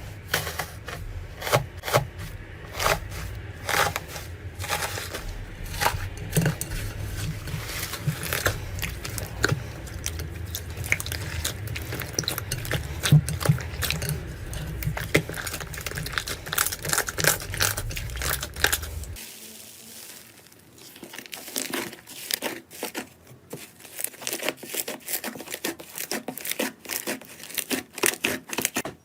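Slime being squeezed and poked by hand, with dense irregular crackling and popping. About twenty seconds in the sound changes abruptly to quieter, sparser pops.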